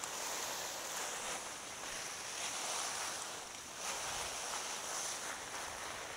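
Steady rushing noise of a mountain bike moving at speed: wind buffeting the action camera's microphone, mixed with tyres rolling over the trail. It comes up suddenly at the start as the bike picks up speed.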